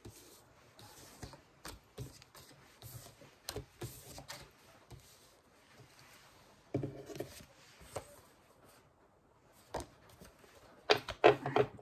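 Tarot cards being handled and laid down on a table: soft scattered taps and slides of card stock, with a brief louder rustle about seven seconds in and a quick, louder flurry of clicks near the end.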